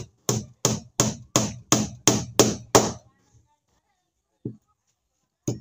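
A hammer driving nails into the plywood planking of a wooden boat hull: about eight sharp, even blows, roughly three a second, stopping about three seconds in. A single softer knock follows.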